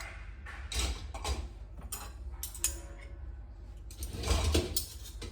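Construction noise from the neighbourhood: scattered mechanical clanks and rattles, with a louder low rumble about four seconds in.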